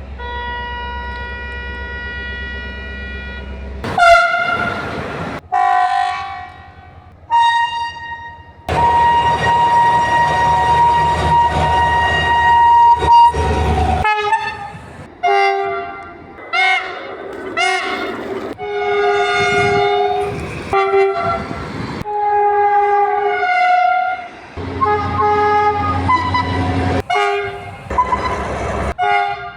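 A string of train horn sounds from different trains, cut together one after another with abrupt changes: some held steady for several seconds, others short toots, some on one note and some sounding several notes at once. A low train rumble runs under some of the blasts.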